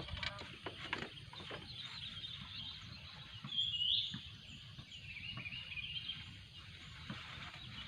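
Outdoor bird calls: one short rising call about four seconds in, the loudest sound, then faint scattered chirps. A few light knocks or clicks come in the first second or so.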